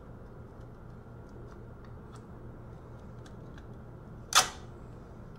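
Small clicks and taps of laptop parts being handled and pried apart by hand, with one loud, sharp snap about four seconds in as a piece is bent and forced.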